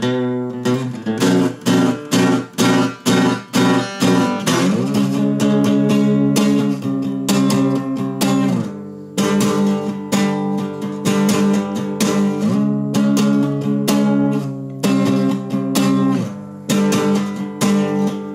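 Guitar strummed in chords with no singing: short, choppy strums in the first few seconds, then chords left ringing, with brief slides at the chord changes.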